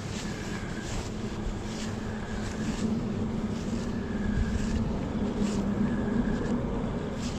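A motor humming steadily at a low pitch, with brief hissing rushes every second or so.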